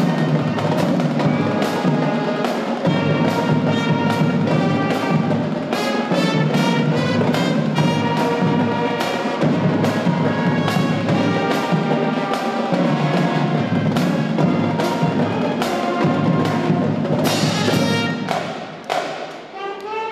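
Marching band playing: brass horns over a drumline, with sharp, regular drum and cymbal hits. The music drops briefly quieter near the end before picking up again.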